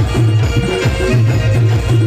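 Adivasi Timli dance music played by a live band: drums and rattle-like percussion keep a steady beat over a repeating low bass note, with held melody notes above.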